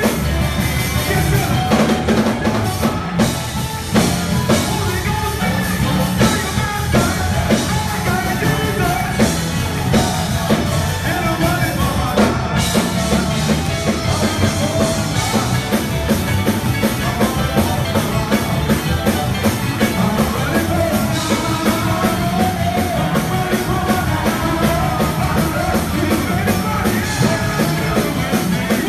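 Loud live church praise music: a band with drum kit plays a driving beat while singers sing into microphones.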